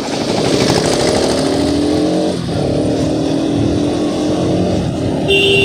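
Motorcycle engine under hard acceleration, revved high toward about 7000 rpm. The pitch climbs, dips briefly about two and a half seconds in as at a gear change, then climbs again, with wind rushing past the helmet microphone.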